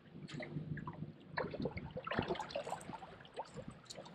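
Small water sounds lapping and trickling against the boat's hull, an irregular run of soft little splashes and ticks.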